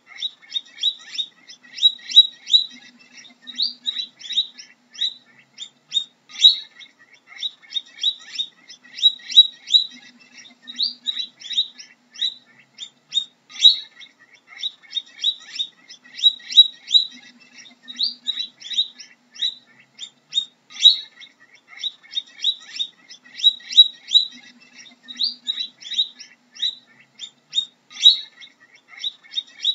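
Guinea pig squeaking: rapid runs of short, high-pitched squeaks, several a second, in clusters that keep coming.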